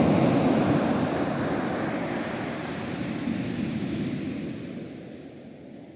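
Heavy surf breaking on a beach, a deep steady rush of waves that fades away gradually.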